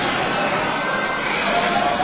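Ice rink ambience during hockey play: a steady, even wash of noise from skates on the ice and the arena hall.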